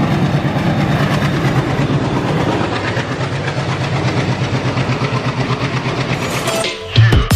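A diesel-hauled Indian express train running past at speed: a steady rhythmic clatter of wheels over rail joints with the low drone of the WDP4 diesel locomotive, easing off toward the end. Loud music cuts in just before the end.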